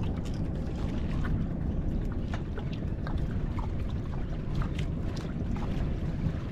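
Steady low rumble of wind and water noise on a small fishing boat at sea, with scattered small clicks and splashes.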